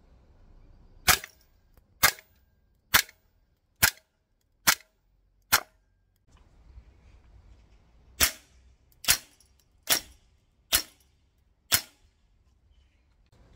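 Airsoft gas blowback rifles (Tokyo Marui MWS-system clones) firing single shots. Six sharp cracks come a little under a second apart, then a pause, then five more at the same pace; each is the gas-driven bolt slamming back and forth.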